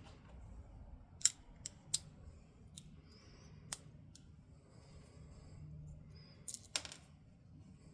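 Small metal parts of an old Plumb 1/4-inch ratchet clicking and clinking as it is handled and worked on. The clicks are sharp and irregular: the loudest comes about a second in, a few lighter ones follow, and a short cluster comes near the end.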